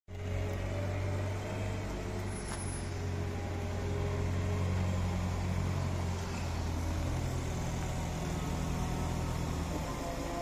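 Bobcat telehandler's diesel engine running steadily as the machine drives up with a loaded bucket, its note shifting slightly about seven seconds in.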